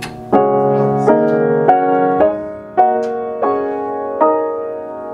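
Grand piano: a run of about seven chords struck one after another, each ringing and fading before the next.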